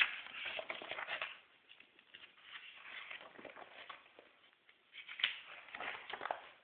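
Glossy magazine pages rustling and flapping as a chimpanzee turns and flattens them by hand, in three bouts of a second or so each.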